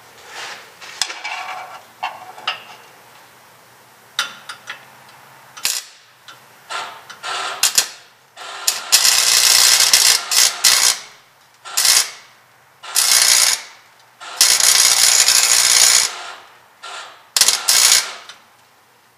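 MIG wire-feed welder arc crackling in a series of bursts that start and stop abruptly. The first bursts are quick tacks under a second long; longer, louder runs of one to two seconds come in the second half.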